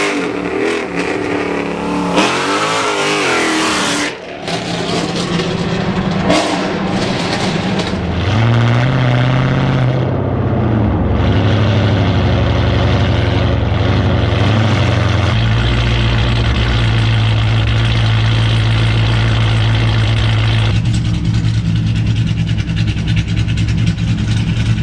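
Straight-piped, cammed 6.1 Hemi V8 of a Chrysler 300 SRT8 revving up and down with a few sharp pops in the first several seconds. It then settles into a steady drone for the rest of the time.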